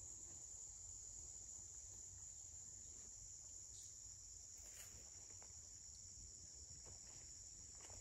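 Faint, steady high-pitched chorus of insects, with a few soft crackles about halfway through and near the end.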